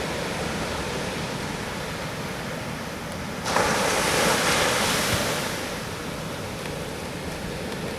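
Pacific Ocean surf, a steady rush of waves. One louder wave breaks suddenly about three and a half seconds in and washes out over the next couple of seconds.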